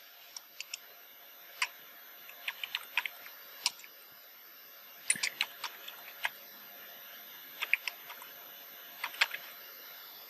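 Typing on a computer keyboard: irregular keystrokes, some single and some in quick little runs, with pauses between, over a faint steady hiss.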